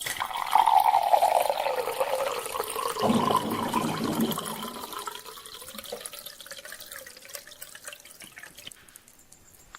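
Water being poured into a glass. It comes in strongly about half a second in, grows heavier and deeper around three seconds in, then fades gradually over the last few seconds.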